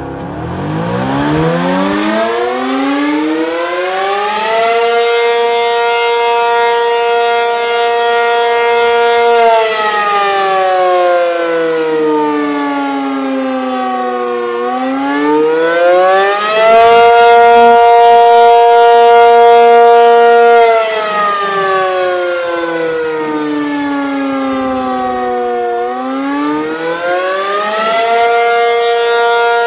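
P-50 rotating outdoor warning siren sounding the attack signal: a wailing tone that climbs in pitch, holds, slides back down and climbs again, over and over in cycles of about eleven seconds. Heard from directly beneath the turning horn, it swells louder for a few seconds as the horn swings round.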